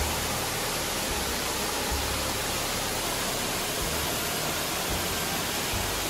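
Steady rushing roar of a waterfall's falling water, with a low rumble on the microphone that comes and goes.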